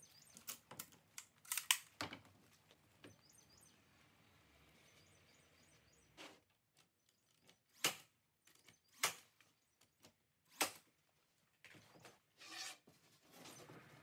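Porter-Cable 18-gauge cordless brad nailer firing brads into the edge of a plywood worktop: a quick cluster of sharp shots at the start, then three single shots about a second apart in the middle. Near the end comes the scrape of plywood panels being slid into place.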